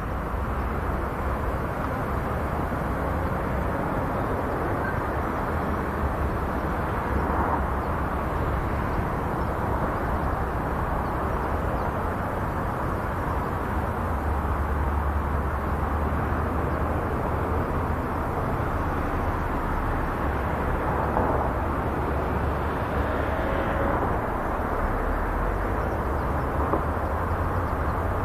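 Small tractor's engine running steadily at a distance as it works the field soil, heard as a low continuous rumble.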